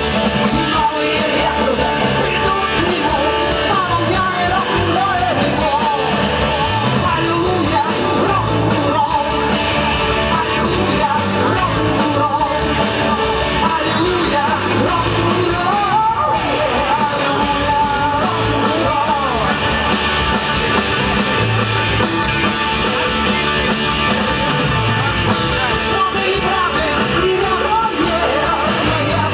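Rock-and-roll song: a sung vocal over a full band with a steady beat.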